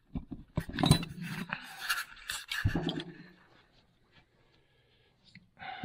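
Metal clinks, knocks and scrapes from a Polaris TX340 two-stroke crankshaft being handled and set upright on a workbench. The sounds are bunched in the first three seconds.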